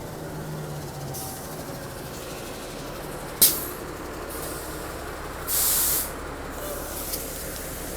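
A 2010 Orion VII NG city transit bus runs at a stop with a steady low hum. About three and a half seconds in there is a sharp clank, and about two seconds later a short hiss of air, typical of the bus's air brakes.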